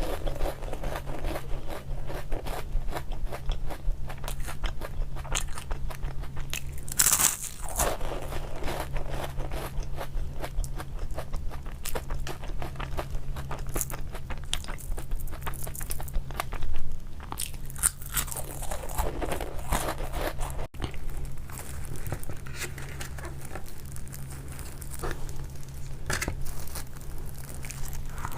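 Crunchy snack being bitten and chewed close to the microphone: a continuous run of crisp crunches, with a few louder bites, over a steady low hum.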